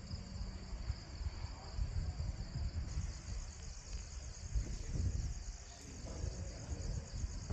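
Crickets chirping in a steady, continuous night chorus, with a low rumble underneath.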